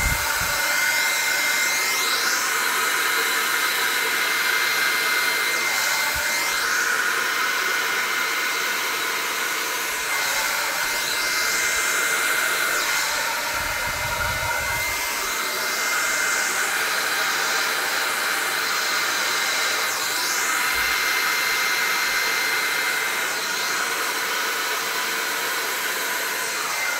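Hand-held hair dryer running on high, blowing acrylic pouring paint across a panel: a steady loud whoosh with a thin high whine, the hiss rising and falling every few seconds.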